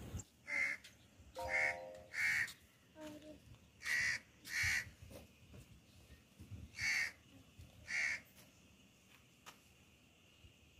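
A bird calling repeatedly: about seven short calls, mostly in pairs about a second apart, fairly faint.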